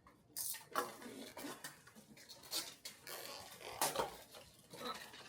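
Gift wrapping being torn open and crinkled by hand: an irregular run of rustling and tearing sounds, the sharpest crackle about four seconds in.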